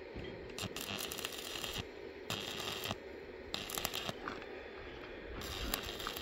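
Stick-welding arc on steel square tubing, crackling and sizzling in four separate bursts of about half a second to a second each, with short breaks between.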